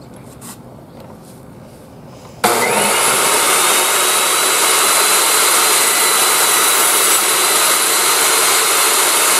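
Ryobi table saw switched on about two and a half seconds in, its motor and blade running at a steady high whine.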